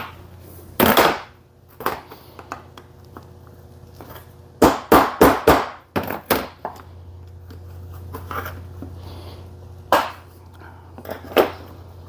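Metal tools knocking and clinking on a Briggs & Stratton lawnmower engine's starter clutch as it is taken apart. A loud knock comes about a second in, then a quick run of about five sharp strikes midway, and single knocks near the end, over a steady low hum.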